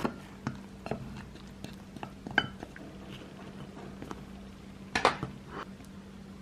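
Tableware clinking: a spoon or utensil knocking lightly against dishes, in scattered single taps with a louder cluster of clinks about five seconds in.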